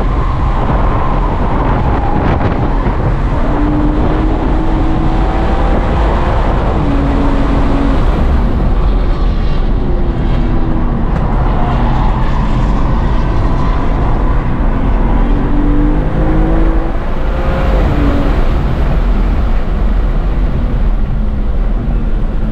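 2023 BMW M2's twin-turbo straight-six engine under hard driving, heard from inside the cabin over steady road and wind noise. Its pitch climbs and falls again and again as the revs rise and drop through the corners and gear changes.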